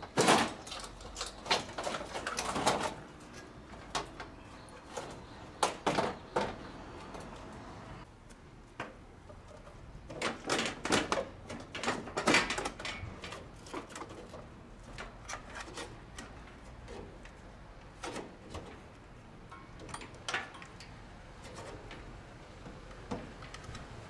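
Irregular metal clanks, taps and rattles from handling the sheet-metal panels and control-board box of an air conditioner outdoor unit, loudest in clusters in the first half and sparser towards the end.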